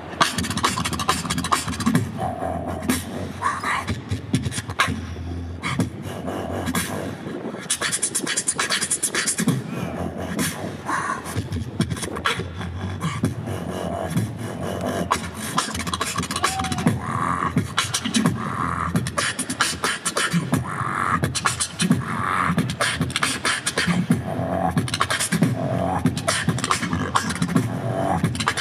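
Beatboxing into a handheld microphone: a fast, steady rhythm of mouth-made kick, snare and hi-hat sounds with short vocal bass notes, amplified over a speaker system.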